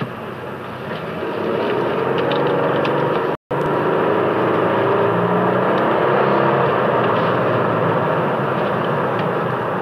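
Engine and road noise inside the cabin of a 2022 Toyota Land Cruiser LC300 while driving. It gets louder about a second in, with the engine pitch rising as the vehicle accelerates. The sound cuts out for an instant about three and a half seconds in.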